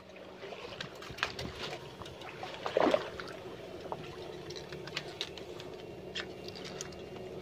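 Faint water sloshing and patter as two electrofishing poles are worked through a shallow muddy canal, with scattered small ticks over a low steady hum. There is a brief louder sound about three seconds in.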